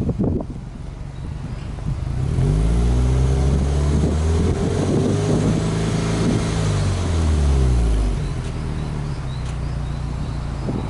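Subaru Impreza WRX STi's turbocharged flat-four boxer engine heard at its exhaust tailpipe: idling, then revved with no load about two seconds in, held up for several seconds and let fall back to idle near eight seconds. A few knocks at the very start.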